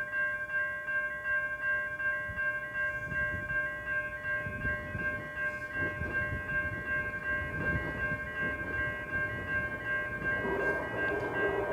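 Level-crossing warning bells ringing steadily, with the rumble of an approaching Adelaide Metro train building from about four seconds in and growing loud near the end as it reaches the crossing.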